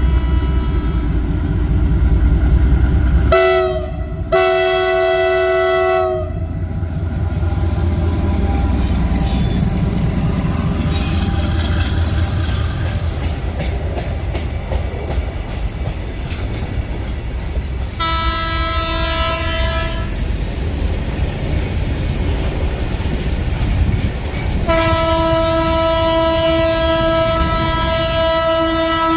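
Indian Railways train passing close by with a steady low rumble and wheel clatter, while the locomotive horn sounds: a short blast and then a longer one a few seconds in, another of about two seconds in the middle, and a long blast starting near the end.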